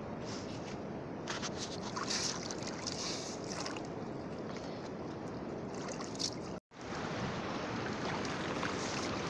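Steady wash of sea and wind noise, with short scrapes and splashes of hands digging through shell grit in shallow seawater. The sound cuts out completely for a moment a little before seven seconds in.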